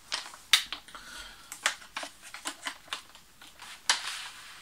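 Sharp, irregular plastic clicks and knocks of a Cybergun FN M249 Para airsoft replica, with its nylon-fibre polymer body, being handled. There are about a dozen of them, with the loudest about half a second in and just before four seconds in.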